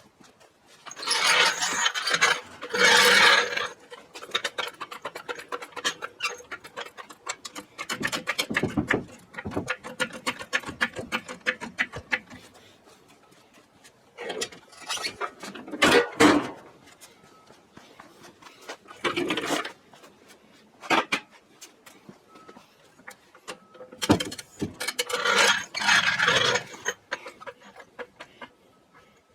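Shop work on a car: scattered clicks and ratcheting of hand tools and parts being handled, broken by several loud bursts of hiss-like noise, each lasting a second or two.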